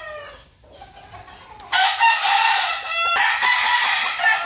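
Roosters crowing: one crow falls away at the start, then a long, loud crow begins nearly two seconds in, with a brief break about a second later.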